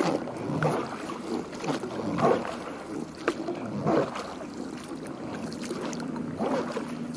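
A small boat moving across lake water: soft water swishes with a sharp knock against the hull a few seconds in.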